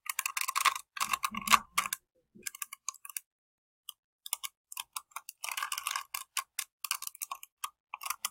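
Quick runs of plastic clicks and clacks from a small Rubik's Cube as its layers are twisted, with a lull of about two seconds early on before the turning picks up again.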